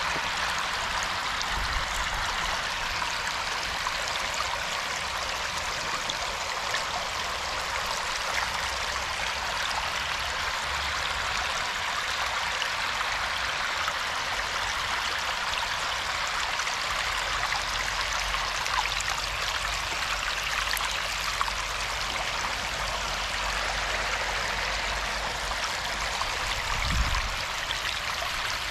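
Water flowing steadily, an even rushing and trickling like a small stream or a channel running through rice fields, with a few low bumps, one near the end.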